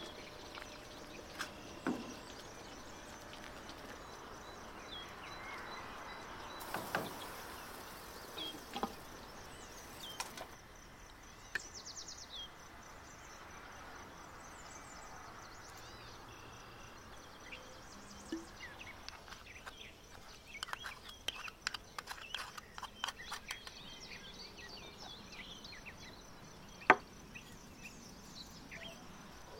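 Rural outdoor ambience with birds chirping, broken by scattered clicks and knocks: a quick run of them about two-thirds of the way through and one sharp, loud knock near the end.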